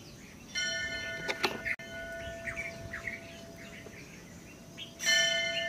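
Temple bell struck twice, about half a second in and again near the end, each strike ringing on for a few seconds as it fades. Birds chirp between the strikes.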